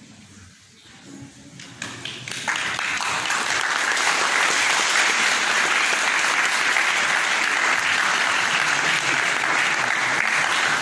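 Audience applauding, starting about two seconds in and going on steadily.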